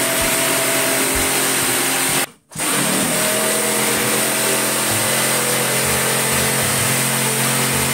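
Electric drill running steadily with a motor whine. It cuts out abruptly for a moment about two seconds in, then runs on.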